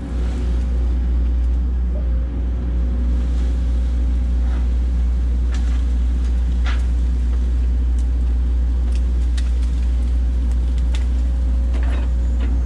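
John Deere excavator's diesel engine running steadily, heard from inside the cab, with a faint steady whine through most of it and scattered light clicks and knocks as the boom and thumb work the tree.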